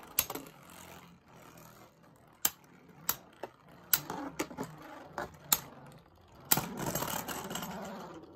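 Two plastic Beyblade Burst spinning tops whirring in a plastic stadium, with sharp clacks as they collide, about eight times. In the last two seconds there is a louder scraping rattle as one top loses its spin, wobbles and falls over.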